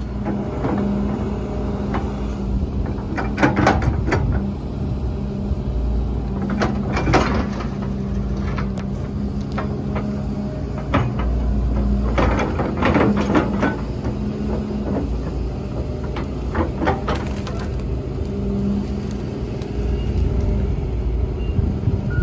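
A heavy machine's diesel engine running steadily while it works rock, with loud clanks and scrapes of stone and steel several times: about 3 and a half seconds in, about 7 seconds in, around 13 seconds in and about 17 seconds in.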